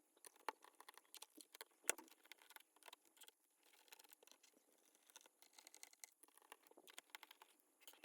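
Faint, scattered small clicks and ticks of a screwdriver working out the bottom-cover screws of an HP EliteBook 640 G3 laptop, with a sharper click about two seconds in.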